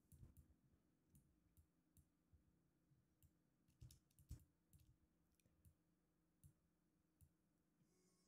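Near silence broken by faint, irregular clicks of a computer mouse, a little louder just after the start and about four seconds in.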